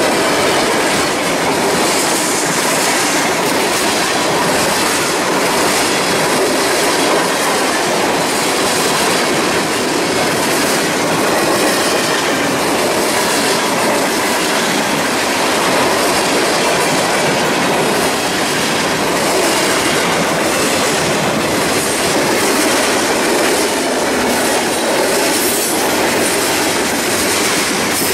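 Freight cars of a Norfolk Southern train rolling past close by: a steady, loud rolling rattle of steel wheels on rail, with repeated clacks.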